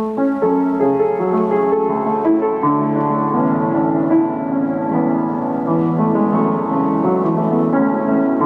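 Piano being played: a slow passage of sustained chords and melody notes that starts suddenly with a chord.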